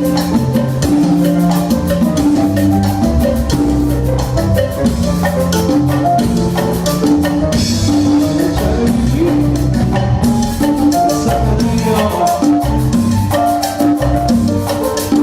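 Live band playing an instrumental Latin dance tune, with a repeating bass line under steady drums and percussion.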